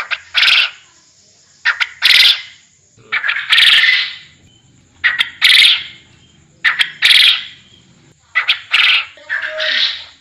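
Puyuh kebon (garden quail) lure call: a loud two-part call, a short note then a longer one, repeated about every one and a half seconds, seven times.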